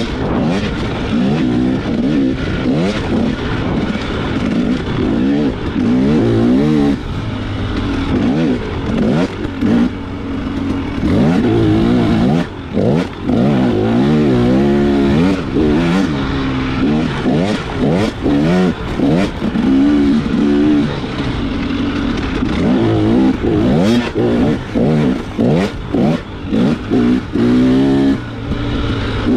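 Off-road motorcycle engine revving hard, its pitch rising and falling again and again as the throttle opens and shuts, with short drops in level. Sharp knocks and clatter from the bike over the trail come through again and again.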